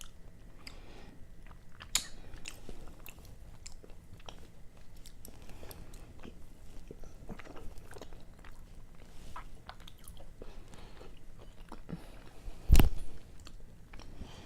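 A person chewing raw sashimi close to the microphone: soft wet mouth sounds and many small clicks. A single loud thump comes near the end.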